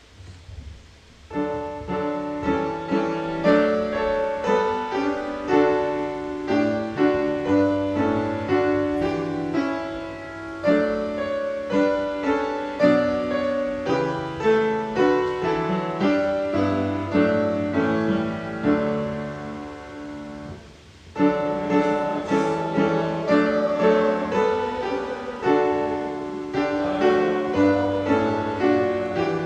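Piano playing a hymn tune, one struck chord after another. It begins about a second in, breaks off briefly about two-thirds of the way through, and starts again.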